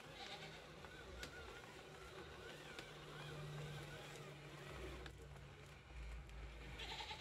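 Homemade 1/8-scale RC dump truck, loaded with soil, driving over gravel: a faint motor hum, then a low rumble from about five seconds in as it comes close.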